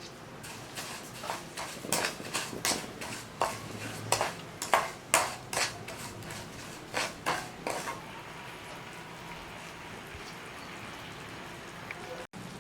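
A cooking utensil clinking and scraping against cookware, a dozen or so sharp strokes, stopping about eight seconds in and leaving a faint steady hiss.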